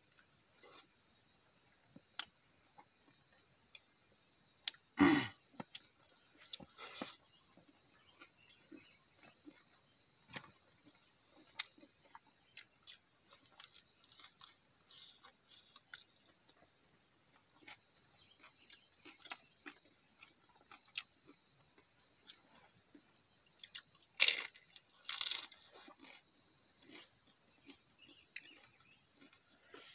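Insects chirring steadily at a high pitch, with scattered small clicks and smacks from hand-eating and chewing. The chewing sounds are loudest about five seconds in and again twice near the 24- and 25-second marks.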